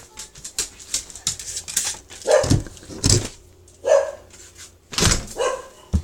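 A pet dog barking, about four or five short barks spread over a few seconds.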